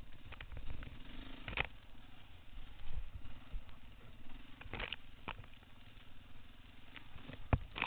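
Single-cylinder four-stroke dirt bike engine running slowly at low revs, with several sharp knocks and rattles scattered through it as the bike pushes through tall grass.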